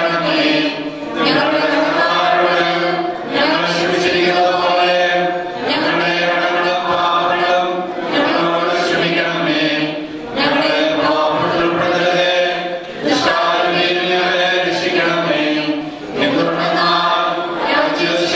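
Sung liturgical chant: voices chanting in long held phrases with short breaks, over a steady low held note.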